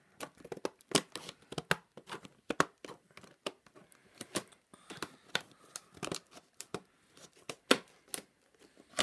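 Stiff clear plastic blister packaging being cut open with scissors and handled, crinkling and crackling in an irregular run of sharp clicks and snaps.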